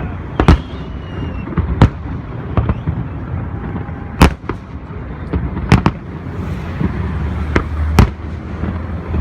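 Fireworks display: shells bursting in five sharp, loud bangs about one to two and a half seconds apart, over a continuous low rumble and crackle.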